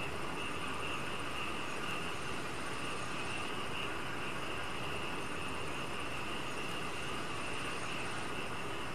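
Steady night-time insect chorus: a continuous high drone over low background noise, with no breaks.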